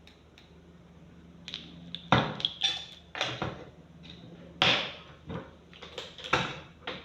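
Kitchen utensils and containers knocking and clinking, likely a spoon and tins while baking powder is measured out. It starts about a second and a half in as a string of separate sharp knocks at uneven intervals.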